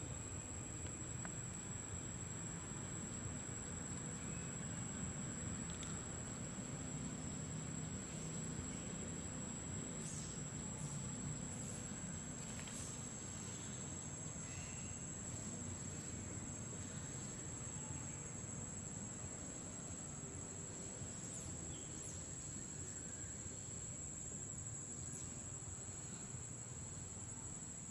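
Forest ambience: a steady high-pitched insect drone over low background noise, with a few faint short chirps around the middle.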